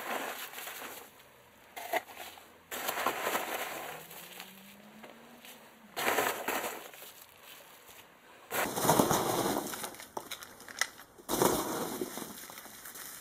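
Packaging crinkling and rustling in several separate bouts of a few seconds each, as a motorcycle slip-on exhaust is unboxed and handled.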